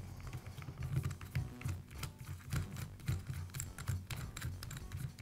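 Keyless chuck of a Makita cordless hammer drill being spun by hand onto the drill's spindle: a run of light, quick clicks with rubbing.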